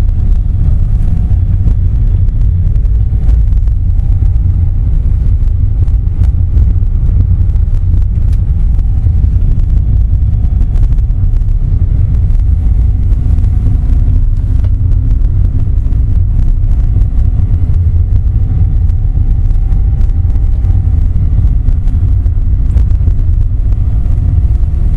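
Car driving along a winding road, heard from inside the cabin: a steady low rumble of engine and tyres, with a faint engine hum that rises and falls gently.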